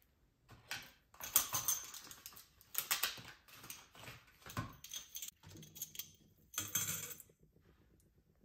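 Stainless-steel drinking straws and silicone kitchen pieces being picked up and handled: a run of light metallic clinks, clicks and rustles that stops about a second before the end.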